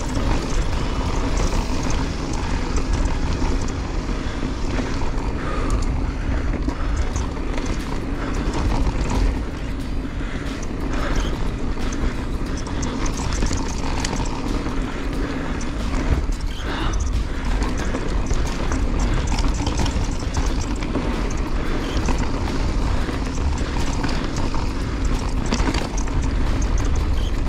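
Canyon Strive mountain bike riding fast down a dirt and rock trail: steady wind rumble on the action camera's microphone, tyres on dirt and stones, and chain and frame rattle with a few sharper knocks over bumps.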